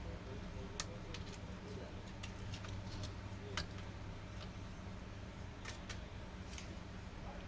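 Scattered light clicks and taps, about eight in all and loudest near the middle, as laptop parts are handled during disassembly, over a steady low hum.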